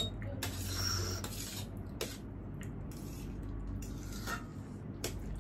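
Cutlery clinking and scraping on plates as noodles are eaten, with a few separate light clicks over a low steady hum.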